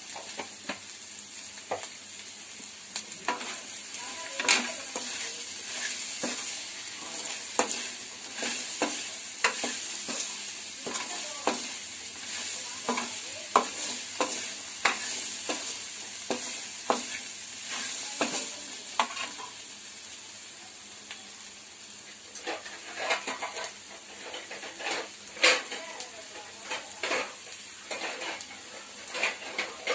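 Boiled white chickpeas (chana sundal) being stir-fried in a pan of tempering: a spoon scrapes and knocks against the pan about once a second, then in quicker clusters near the end, over a steady sizzle of hot oil.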